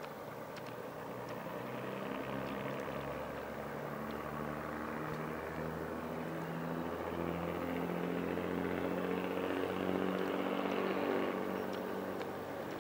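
Class 108 Derby Lightweight diesel multiple unit approaching, its diesel engines running with a pitched note that steps up and down. It grows louder until about a second before the end, then eases slightly.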